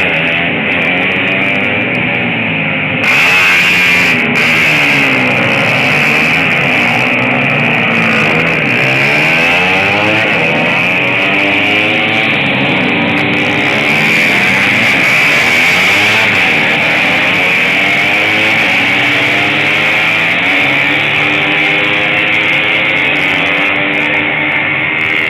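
Several racing motorcycle engines revving hard at once. Their pitches rise and fall and cross one another as the bikes accelerate and shift.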